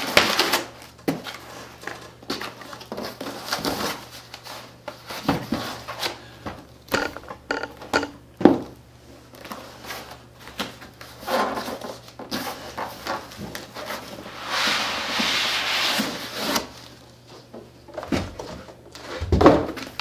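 A flat cardboard box being opened by hand: plastic wrap and cardboard rustling and scraping, with scattered knocks as the box is handled and a longer rustle a little past the middle. Near the end, foam packing sheets are slid out.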